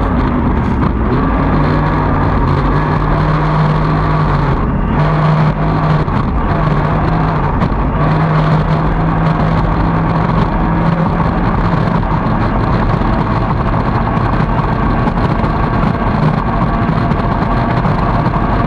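Outboard racing engine of a T850 race boat running hard at racing speed, its pitch steady, over a rush of wind and water spray. The sound dips briefly about five seconds in.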